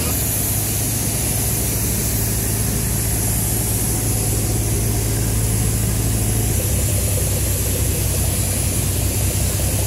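Boat's diesel engine running steadily, a loud low drone whose note shifts slightly about six and a half seconds in.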